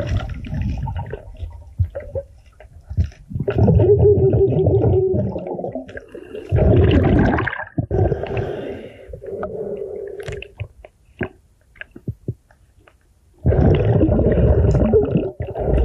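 Muffled water sound from an underwater camera as a diver moves along a riverbed: loud surges of rushing, gurgling water every few seconds, with a few small sharp clicks in the quieter stretches between.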